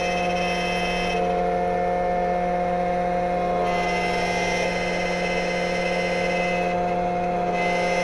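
XTOOL automatic key cutting machine running steadily, its cutter milling a car key blade with a constant whine. The higher hiss of the cut drops away twice, about a second in and near the end, and comes back.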